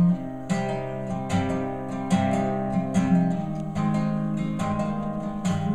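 Solo acoustic guitar strummed in an instrumental break of a folk song, a fresh chord about every second with the notes ringing between strums.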